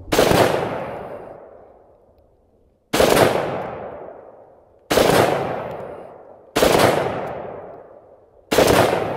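Five single shots from a Springfield Armory Hellion 5.56mm bullpup rifle in slow aimed semi-automatic fire, roughly two seconds apart. Each report rings out and dies away over a second or two.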